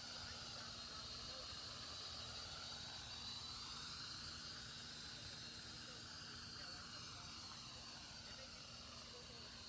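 Small quadcopter drone in flight, its rotors whining with a pitch that slowly falls, rises and falls again as it manoeuvres and climbs, over a constant low hum.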